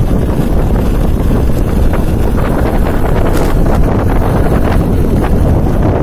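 Heavy wind buffeting the microphone on a motorcycle coasting downhill with its engine switched off, so there is no engine sound, only a steady rush with a few light clicks.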